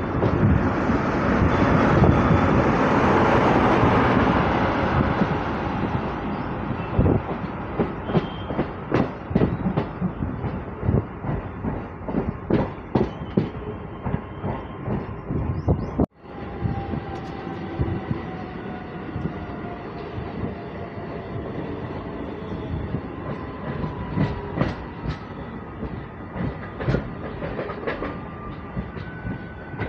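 MMTS suburban electric multiple-unit train running on the rails, heard from its open doorway: a loud rushing run for the first few seconds, then rapid, irregular clicking of the wheels over rail joints and points. After a brief dropout about halfway, the running goes on quieter, with faint high squealing tones.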